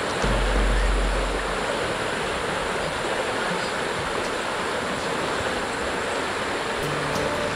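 Swollen, muddy stream rushing fast in spate after heavy rain, a steady rushing of water. A low rumble in the first second and a half.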